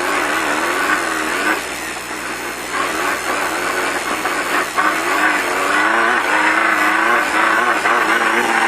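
Off-road race car's engine revving up and down as it is driven over rough desert ground, its pitch rising and falling with the throttle over steady rumble and road noise, with a single knock midway.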